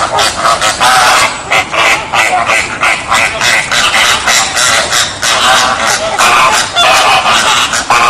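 A flock of flamingos calling: many short calls following one another quickly and overlapping, with no break.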